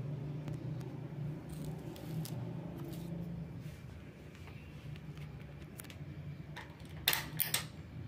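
Low steady electrical hum of running electric fans, easing off a little after about three seconds. A quick cluster of sharp clicks comes about seven seconds in.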